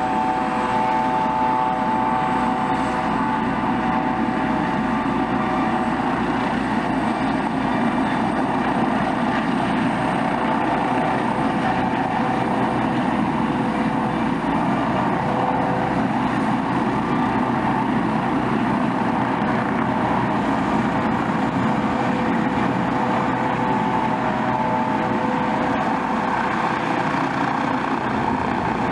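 Eurocopter EC155 B1 helicopter running on the pad, rotors turning: a steady turbine whine from its twin turboshaft engines over the rotor noise.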